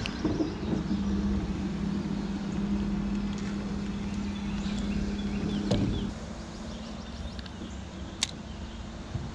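A low, steady motor hum that shifts pitch and drops in level about six seconds in, with a couple of sharp clicks.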